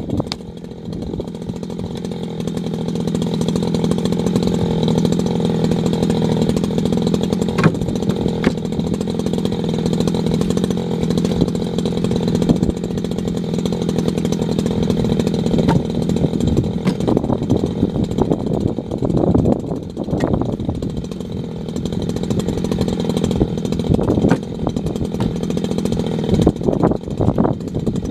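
Echo CS620 60cc two-stroke chainsaw with a 24-inch bar running at high revs, cutting firewood branches. It comes up to speed over the first few seconds and then holds steady, with occasional knocks of wood.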